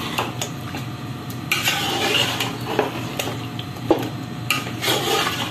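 A metal spoon stirring beef trotters through thick masala in a large aluminium pot, frying them in the spice paste: irregular scrapes and wet churning, with sharp clinks of the spoon against the pot, the sharpest about four seconds in.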